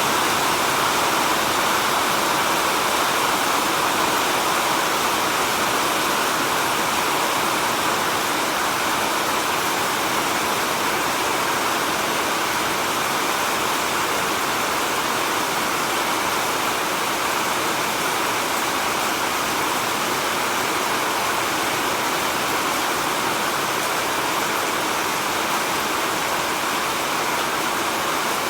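Heavy rain falling steadily in a forest, a dense even hiss of rainfall.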